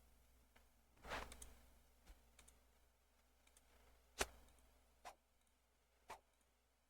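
Near silence broken by a few faint, sharp computer mouse clicks, roughly a second apart.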